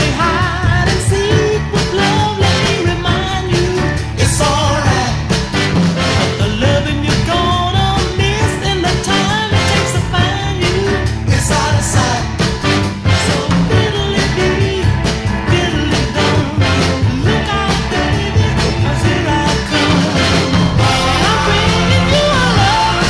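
Music with a steady beat and a bending melodic line running over it.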